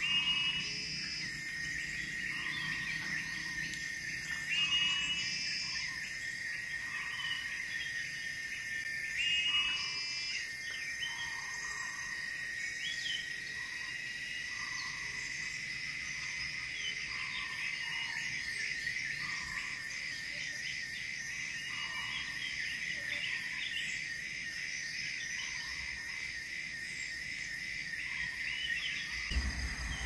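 Steady high-pitched insect drone from cicadas or crickets, wavering in pitch over the second half. A softer call repeats about once a second underneath, and three short louder calls stand out in the first ten seconds.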